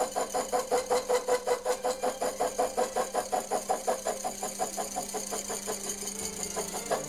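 Slitting saw cutting a slot through a steel ring, a regular rhythmic chatter of about six or seven pulses a second as the teeth bite, easing off in the last couple of seconds.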